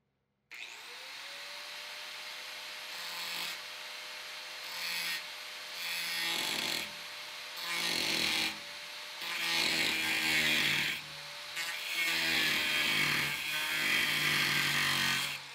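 Angle grinder with a cut-off wheel spinning up, then cutting relief cuts into the ridges of a corrugated steel truck-bed floor. The motor's steady whine is broken by about six louder bursts of grinding as the wheel bites into the sheet metal, the last and longest near the end.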